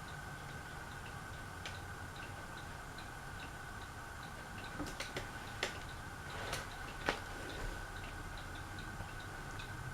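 Light, regular ticking at about two to three ticks a second over a steady hum, with a few sharp clicks and knocks a little past the middle.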